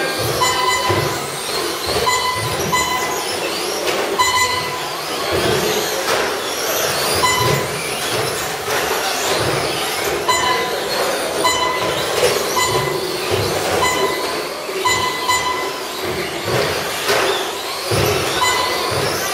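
Electric Traxxas Slash short-course RC trucks racing on carpet, a steady whir of motors and gears with irregular knocks as they hit boards and land off jumps. Short beeps repeat at uneven gaps, like a lap counter registering cars crossing the line.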